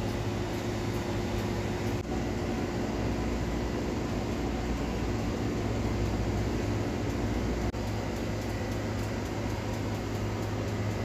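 Electric oven running while baking, a steady low mechanical hum and whir.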